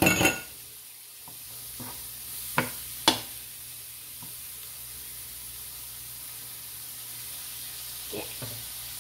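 Swiss chard sizzling in a frying pan, a steady high hiss, with a few sharp clicks and knocks: the loudest right at the start, then two about two and a half and three seconds in, and fainter ones near the end.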